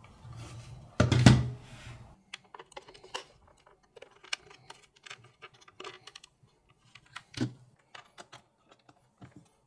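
Handling noise: a loud thump about a second in, then scattered light plastic clicks and taps as USB-C cables are plugged into the air monitors and a USB charging hub.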